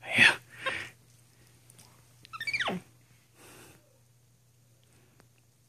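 Capuchin monkey giving one short squeal that slides steeply down in pitch, followed by a brief soft rustle; the rest is quiet, with a faint low hum.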